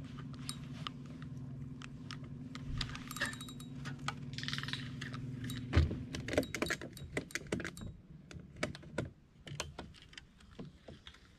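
Electric trolling motor humming steadily, then stopping with a knock about six seconds in. After that comes a run of sharp clicks and rattles from the fishing rod and spinning reel being handled against the plastic kayak.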